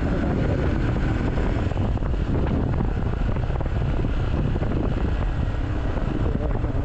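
Motorcycle running on the move, its engine and modified exhaust a steady rumble under heavy wind noise on the microphone.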